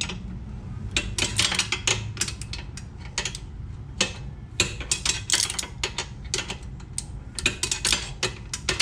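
A hand wrench working a tight nut on an ATV's swing-arm chain-adjuster bolt in tiny turns: a run of irregular metallic clicks and clinks, over a low steady hum.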